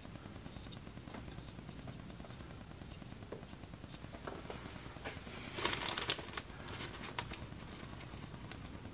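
Small metal clicks and rattles as a test dial indicator and its magnetic-base arm are set against a lathe spindle nose. A quick cluster of clicks comes a little past halfway and a single click about a second later, over a faint steady low hum.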